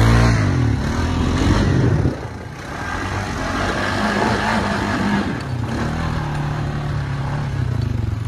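ATV (four-wheeler) engine revving up and down as it turns circles. It eases off about two seconds in, then runs more steadily with small swells of throttle.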